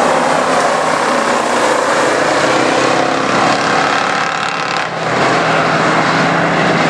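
A pack of street stock race cars racing on a dirt oval, their engines blending into one steady, loud drone, with a brief dip about five seconds in.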